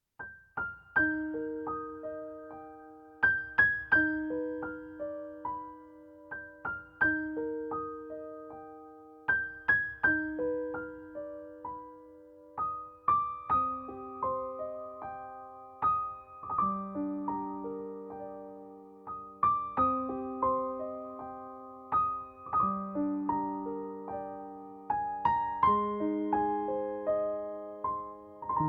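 Gentle background music played on a piano or electric piano: single struck notes that ring and fade, in a slow, repeating pattern.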